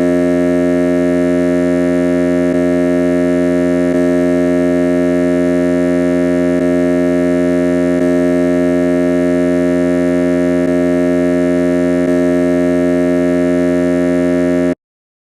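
A ship's alarm sounding one continuous steady tone for about fifteen seconds, then cutting off abruptly near the end.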